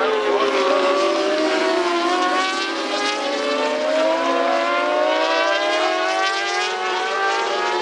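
Several Moto2 racing motorcycles' 600cc four-stroke engines running at high revs through a corner. Their overlapping engine notes glide up and down in pitch as the bikes accelerate out of the bend and pass by.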